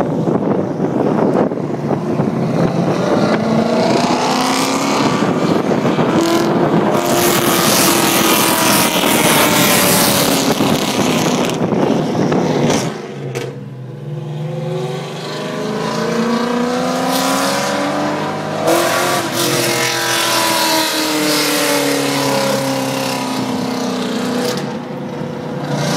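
Pontiac GTO's 6.0 L LS2 V8 with a custom exhaust (headers and intake) running hard, loud and climbing in pitch under acceleration. About halfway through it drops back suddenly, then climbs and falls away again.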